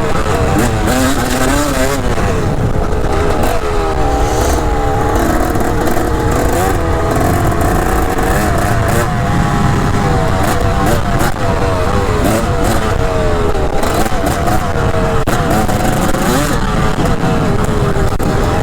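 Dirt bike engine running under way, its revs rising and falling continually as the throttle is worked.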